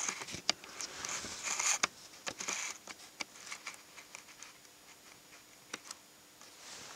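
Camera being focused by hand: a run of small clicks and short rustles in the first few seconds, then only an occasional single click.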